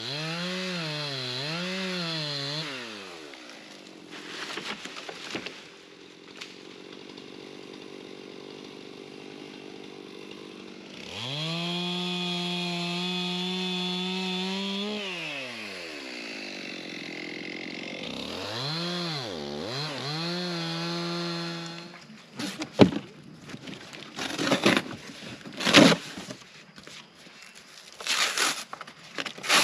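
Chainsaw revved twice, then run at full throttle for about four seconds and winding down, revved again and shut off about two-thirds of the way through, felling a standing dead ash tree. A string of sharp knocks and rustles follows.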